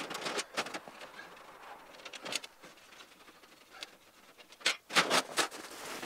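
Clicks, knocks and rattles of the corrugated sheet-metal rear access panel of an outdoor wood furnace being opened and moved aside, with a quick run of louder knocks about five seconds in.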